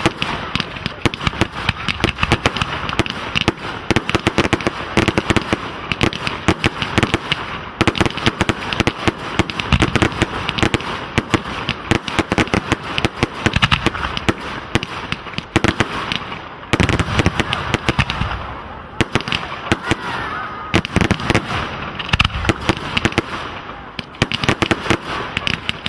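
Fireworks display: a dense, continuous barrage of rapid bangs and crackles, with a few short whistling glides near the end.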